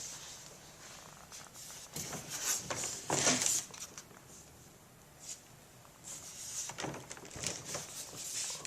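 Scraping and rubbing of the plastic folding kayak's hull as it is handled and shifted, in irregular bursts: one cluster a couple of seconds in and another in the last third.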